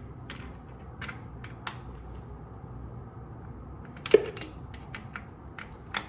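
Irregular sharp metallic clicks and taps from a wrench working the nut on the starter's cable terminal as it is snugged down. The loudest click comes about four seconds in.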